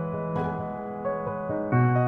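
Background music: a gentle piano or electric-piano melody with sustained notes changing every fraction of a second.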